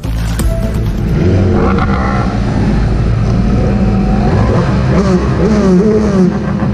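Several superstock motorcycle engines, among them the onboard Kawasaki ZX10R's inline-four, revving on a race start grid. From about a second in, their pitch rises and falls in repeated blips.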